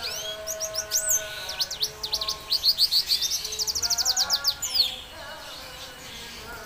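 Male red siskin singing: a string of quick rising and falling chirps and whistles runs into a fast twittering trill, and the song stops about five seconds in.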